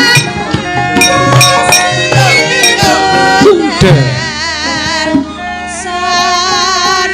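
Javanese gamelan music: kendang drum strokes over ringing metallophone tones, and from about four seconds in a voice sings over the ensemble with a wavering, ornamented line while the drumming thins out.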